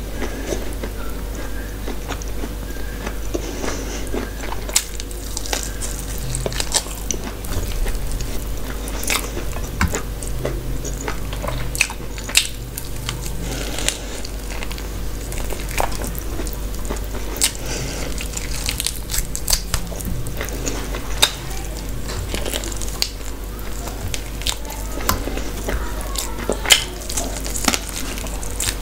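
Close-up eating sounds: wet chewing, lip smacks and bites into chicken curry and rice eaten by hand, with short sharp clicks scattered irregularly and the occasional touch of fingers on a steel plate.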